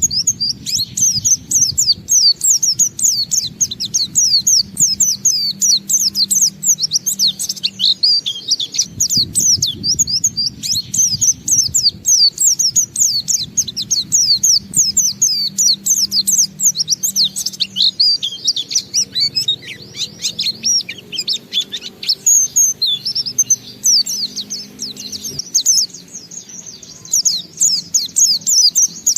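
White-eye (pleci) singing a long, unbroken run of rapid, high, falling chirping notes, the continuous 'ngalas' song, with a brief thinning near the end. A low steady hum lies underneath.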